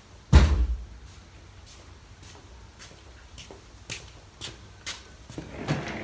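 A single heavy thump about half a second in, then faint clicks about twice a second, and a rustle of handling near the end as someone reaches the camera.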